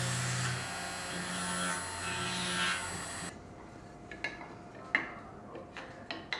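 Electric spindle motor of a woodworking machine's router head winding down after being switched off. Then light wooden knocks and clicks as small pine blocks are picked up and set down on the wooden table, the sharpest about five seconds in.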